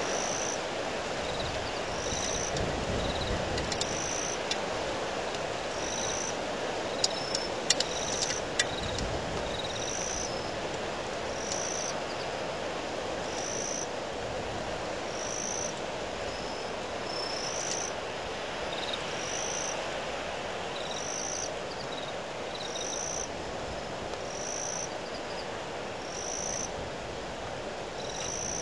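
Wind blowing steadily with a constant rushing noise. A single high chirp repeats about every second and a half to two seconds, and a few sharp clicks come about seven to nine seconds in.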